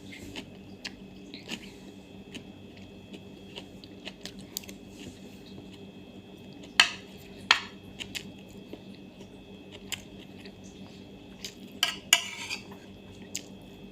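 Utensils clinking against a plate while eating, with a few sharp clinks about seven seconds in and again near the end, over a steady low hum.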